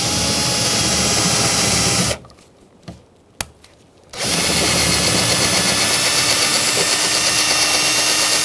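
Power drill with a bit slightly larger than the rivet, drilling off the head of the rivet that holds a front interior door handle to the door. It runs for about two seconds, stops with a single click in the pause, then starts again about four seconds in and keeps running.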